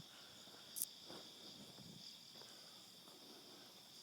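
Faint, steady high-pitched insect chorus, like crickets, with a single short click about a second in.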